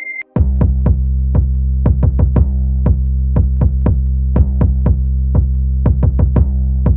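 Electronic background music with a drum-machine beat of sharp hits over a steady low bass. A held note cuts off just before the beat comes in.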